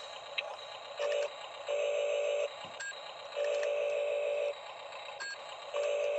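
Small electric motors of a Huina RC toy excavator whining in four short on-off bursts, each up to about a second long, as its controls are worked in turn.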